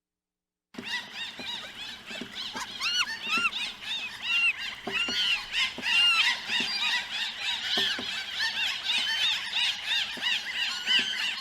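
Recorded animal sound effect: after a brief silence, a dense chorus of many short, high squealing calls, each rising and falling in pitch and overlapping one another, with faint knocks beneath.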